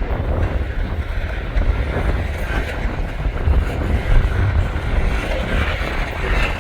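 Freight train of covered hopper cars rolling past, a steady rumble of wheels on the rails, with strong wind buffeting the microphone.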